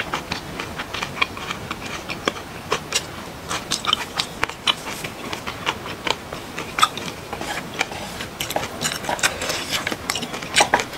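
Close-miked chewing: wet mouth sounds with many small, irregular crunchy clicks as a mouthful of food is chewed.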